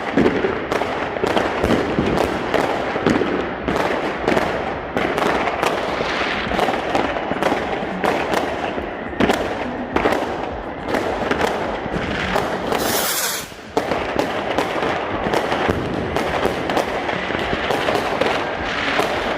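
Fireworks going off in a dense, continuous string of sharp bangs and crackles, several a second, with a brief lull about thirteen seconds in.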